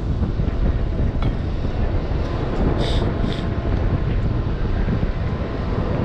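Wind buffeting the microphone: a steady low rumble, with two short high-pitched blips about three seconds in.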